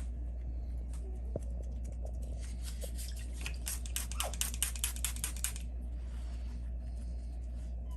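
A paintbrush dabbing and scratching on a model rock surface: a quick run of sharp ticks, several a second, for about three seconds in the middle, over a steady low hum.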